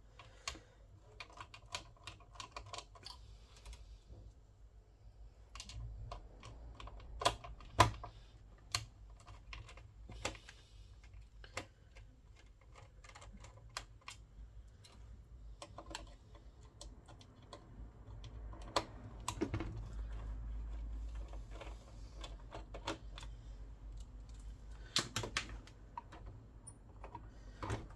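Irregular small clicks and taps of a screwdriver working screws and metal and plastic parts being handled as a PlayStation 3 is taken apart.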